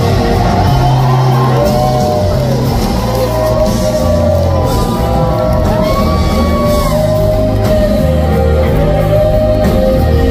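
A rock band playing live in a large concert hall, loud and steady, with a pitched lead line gliding up and down over the bass and voices shouting and singing over the music.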